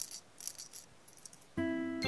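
Children's TV score music: a few soft, high shaker rattles, then about one and a half seconds in a plucked, keyboard-like chord comes in loud and rings on.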